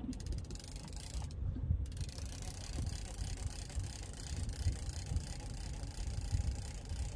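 Uneven low rumble of wind buffeting the microphone, with water moving against the hull of a drifting boat.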